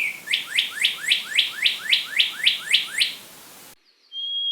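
Songbird singing clear, whistle-like notes: the tail of a falling whistle, then a quick series of about eleven pure notes, each sweeping up and back down, about three a second. A steady high tone starts near the end.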